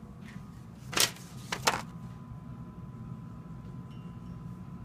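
A sharp knock about a second in, then two quick clicks close together, over a steady low hum.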